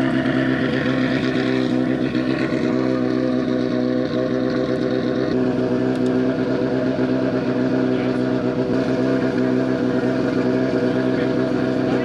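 Rally car engine idling steadily.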